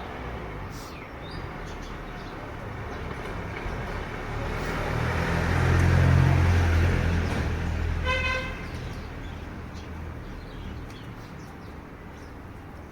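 A motor vehicle passes, its engine hum rising to a peak about six seconds in and then fading, with one short horn toot about eight seconds in.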